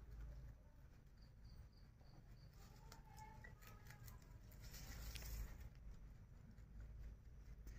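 Faint rustling and crunching of fresh grass as rabbits chew and tug at the stalks, with scattered soft clicks, busiest around the middle. A short run of five high pips about a second in.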